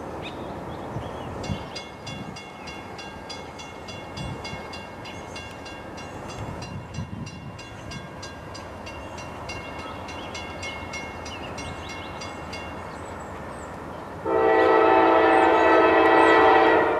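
Grade-crossing bell ringing rapidly and evenly as the crossing activates for an approaching train. Near the end, the lead locomotive's Nathan K5LA chime horn, on Norfolk Southern GE D9-44CW 9674, sounds one long chord of several notes lasting about three seconds.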